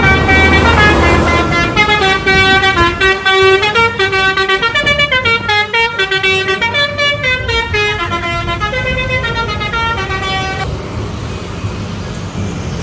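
Bus telolet horn, a Basuri-type multi-tone air horn, playing a stepping melody of several notes for about ten and a half seconds, then stopping and leaving a steady noise.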